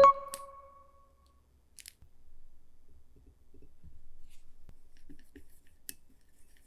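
A thump with a short ringing tone that fades over about a second, then scattered faint clicks and light taps of things being handled, like dishes and utensils at a table.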